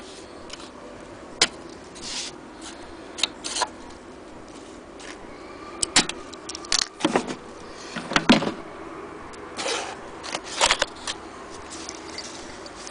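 Irregular clicks, knocks and scrapes of handling at a sewing machine and its wooden cabinet, with the sewing machine itself not running. The loudest knocks come in a cluster about eight seconds in.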